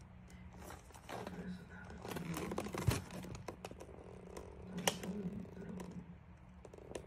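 Cat rustling newspaper flyers and scraping cardboard as it moves about inside a cardboard box: irregular rustles and clicks, with sharper knocks about three and five seconds in.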